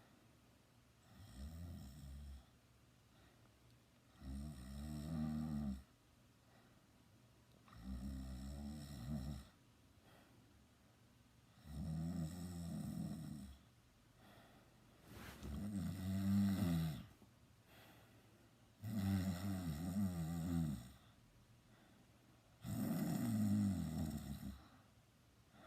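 A sleeping teenager snoring in a steady rhythm: seven buzzing snores, each lasting a second or two, coming about every three and a half to four seconds with quiet breaths between.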